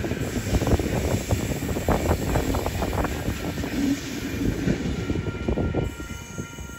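A train passing on the line, its wheels rumbling and clattering over the rails, easing off near the end. Steady high tones come in about five seconds in.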